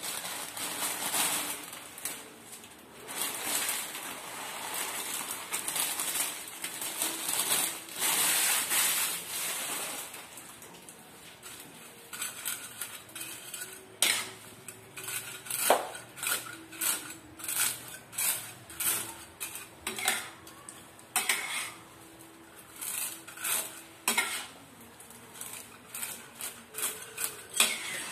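Spatula scraping and knocking against a wok while stir-frying noodles. For about the first ten seconds the sound is a denser, rougher scraping and tossing, then it breaks into sharp, irregular clinks and knocks on the pan, several a second.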